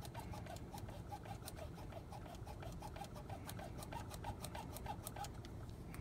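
Faint, quick rhythmic scratching ticks, about five a second, from a fiber-optic connector being rubbed back and forth across the cleaning tape of a push-button fiber connector cleaning cassette; the ticking stops about five seconds in.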